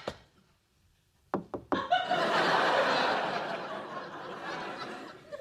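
Three quick knocks on a door, then a studio audience laughing.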